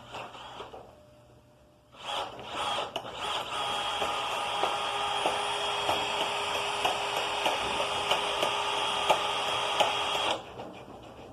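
Small power tool running and grinding against the sheet metal of a toolbox to take the paint off, throwing off metal shavings. It starts about two seconds in, runs steadily for about eight seconds and stops near the end.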